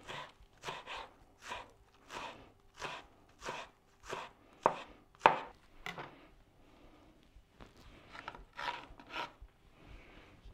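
Chef's knife chopping green onions on a plastic cutting board, about two strokes a second for the first six seconds. After that come fainter, scattered cuts and scraping.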